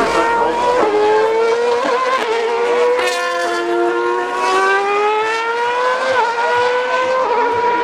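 Formula 1 cars' 2.4-litre V8 engines at racing speed, more than one engine note overlapping. One note drops, then climbs steadily as the revs rise, with a gear change about six seconds in.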